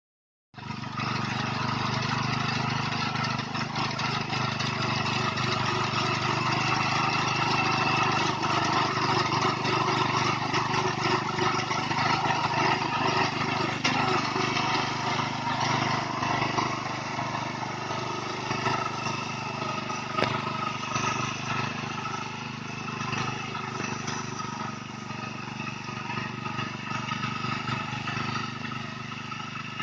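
Rice harvester running: a steady engine drone with its machinery noise, easing off slightly in the last third.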